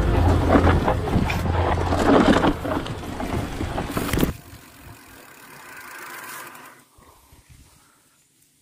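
Mountain bike riding down a dirt singletrack: wind on the helmet camera's microphone and tyres rumbling over the dirt, with scattered rattles and clicks from the bike. It cuts off sharply about four seconds in, leaving a faint sound that fades to near silence.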